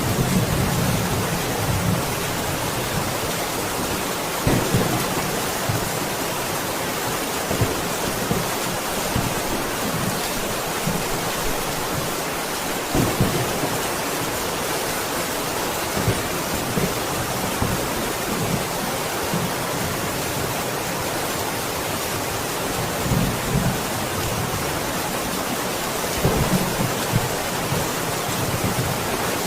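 Steady heavy rain falling, with short low rumbles of thunder coming through every few seconds.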